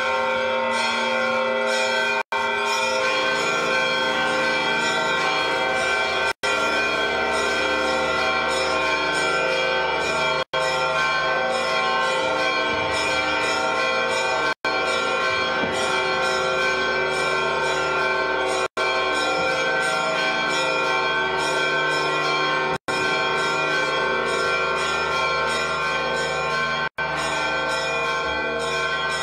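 Church bells pealing continuously, many bells ringing together in a dense, sustained wash of tones. The sound drops out for an instant about every four seconds. The bells ring for the appearance of the Holy Fire.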